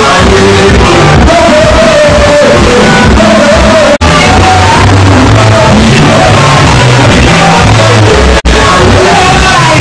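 Loud music with a singing voice over a heavy bass line. The sound cuts out for an instant about four seconds in, and again about four seconds later.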